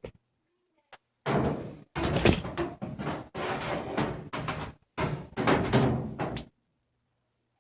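Knocking and scraping from the washer's drive parts being handled and turned by hand, in four bursts of a second or so each.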